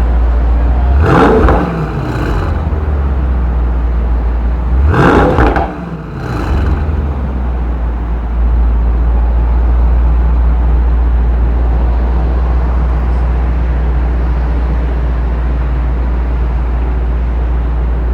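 Mercedes-AMG GT 63 S 4-Door's twin-turbo V8 revved twice while standing, blips about a second in and about five seconds in, each rising and falling within a second, then settling into a steady idle.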